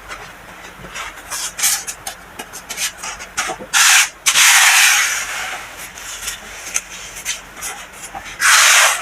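Soft-packed baking soda being crushed, giving a run of small dry crunching crackles, with three louder rubbing swishes: two about four seconds in and one near the end.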